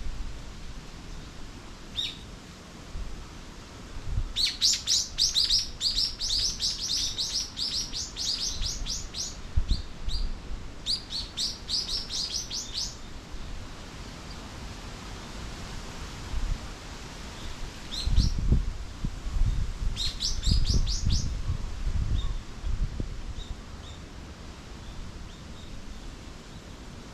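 Songbirds chirping in quick runs of short, high notes, in three bursts of a few seconds each, with a few single calls between them. Low rumbles of wind on the microphone come in after the middle.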